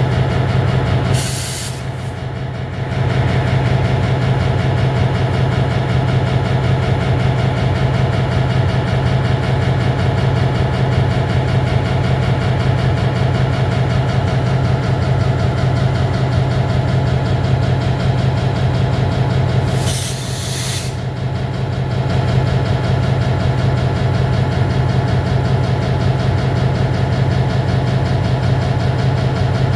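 EMD MP15 diesel switcher locomotive idling steadily, its engine a constant low hum. Two short bursts of air hiss come from it, one near the start and one about two-thirds of the way through.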